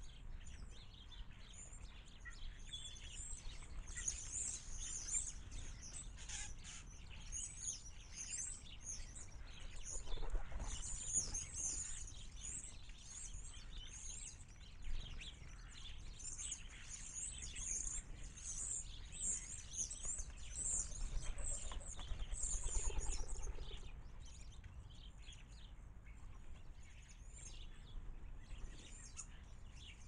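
A flock of sparrows chirping continuously, many short high chirps overlapping, with a louder rustle about two-thirds of the way through.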